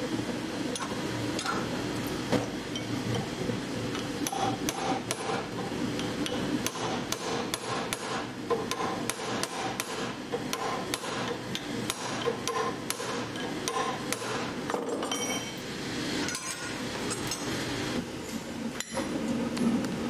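A hand hammer striking a red-hot steel bar on the anvil horn and face: a long run of quick, light blows, a few a second, with short pauses. A steady low rumble runs underneath.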